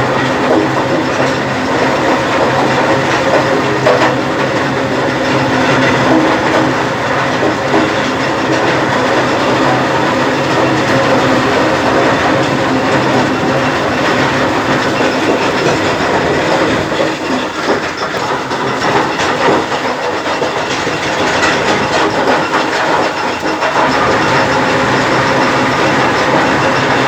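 A stone crusher and its conveyor running: a steady machine hum under a dense, continuous rattling clatter.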